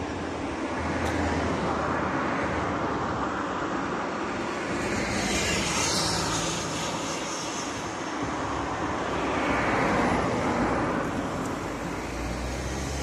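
Motor vehicle noise: a broad rushing sound with a low engine hum that swells and fades a few times, about a second in, around the middle and again near the end.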